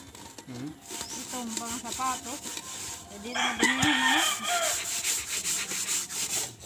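A hand scrubbing the soot-blackened bottom of a rice pot with gritty dirt, a rough rubbing scrape repeated stroke after stroke. A rooster crows once about halfway through, the loudest sound, and chickens cluck before it.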